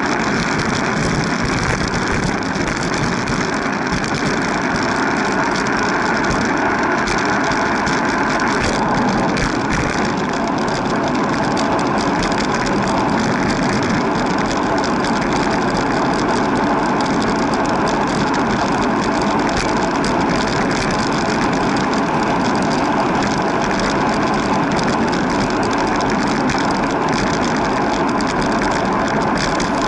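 Steady, loud rush of wind and road noise on a handlebar-mounted camera moving along a street among car traffic.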